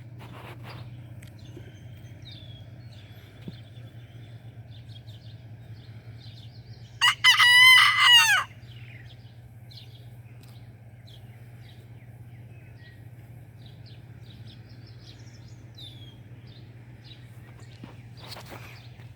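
Bantam rooster crowing once, about seven seconds in, a call of about a second and a half. Faint small-bird chirps and a steady low hum run underneath.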